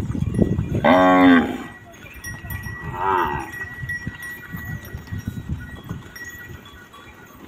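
Zebu cattle lowing as the herd walks: one loud moo about a second in, then a shorter, fainter moo around three seconds in, over the low shuffle of the herd's hooves on the dirt.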